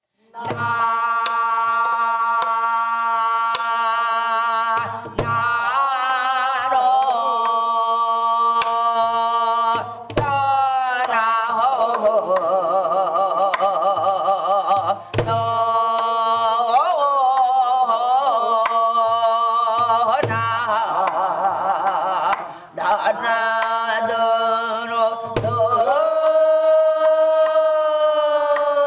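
A woman singing in Korean traditional (pansori-style) voice, long held notes with wide vibrato and sliding pitch, over a steady low tone. A single deep drum stroke falls about every five seconds.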